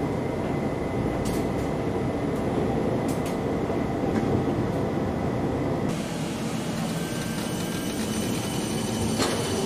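CAF Urbos 100 low-floor tram running, heard from inside the passenger car: a steady rumble of wheels on rail. About six seconds in it changes to a tram moving close by alongside a platform, with a higher hiss and a faint whine.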